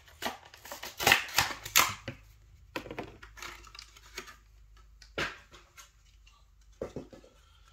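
Plastic packaging of a 1/64 diecast car being handled and opened: a string of sharp clicks and rustles, busiest about a second in, with scattered clicks after.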